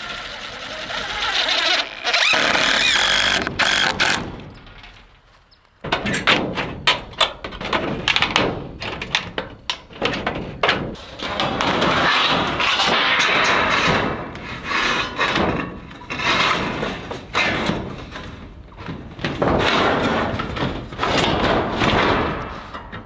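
Cordless impact driver running a screw into a wooden board for a few seconds. Then, after a short lull, a galvanized steel roofing panel is slid and handled over the roof, scraping and clanking with many sharp knocks.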